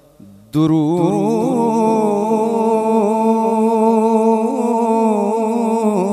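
A male naat reciter singing a long, wavering held note into a microphone. It begins suddenly about half a second in, after a faint fading chant.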